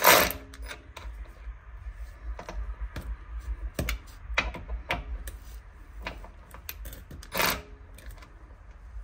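Scattered light clicks and ticks of a hand driver with an Allen socket turning and tightening the screws of a jacking puck on the underside of a car, with one louder noise about seven and a half seconds in.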